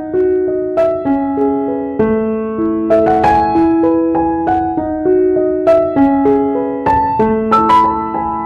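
Background piano music: a melody of struck notes, each ringing on as the next begins.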